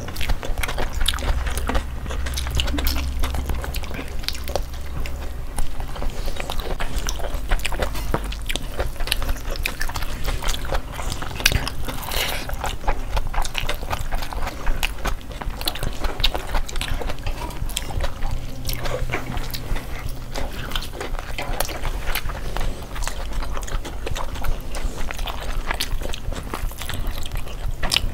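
Close-miked eating sounds: chewing, biting and lip-smacking as several people eat chicken and rice with their hands, a dense run of small wet clicks and smacks.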